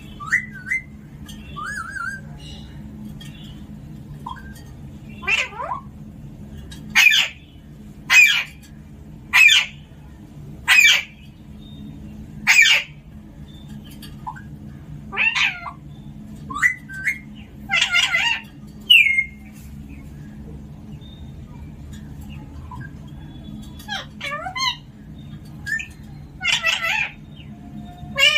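Alexandrine parakeet giving a dozen or so short, loud calls, one every second or two, with a pause of a few seconds past the middle.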